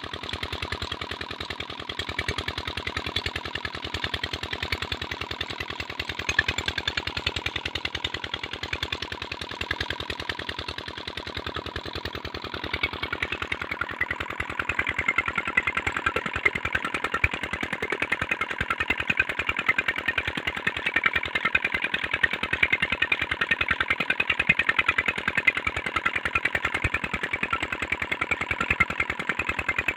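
Petter stationary diesel engine running steadily under load, driving a tube-well pump by flat belt, with a fast, even diesel knock. It grows a little louder and brighter about halfway through.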